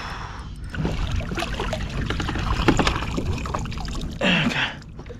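Water splashing and dripping around a kayak, with irregular knocks and clicks against the hull.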